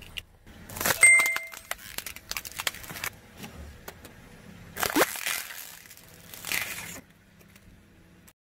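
Car tyre crushing toys on asphalt: a brief squeak about a second in as a rubber chicken is squashed, then crackling and crunching as a blue foam thumbs-up figure breaks under the tyre, with louder crunches about halfway through and again a little later.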